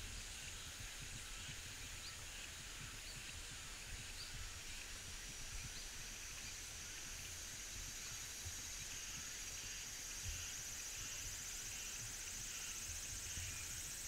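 Outdoor ambience of a steady, high insect drone that swells a little about halfway through, with a faint short chirp repeating about every half second, over a low rumble of wind.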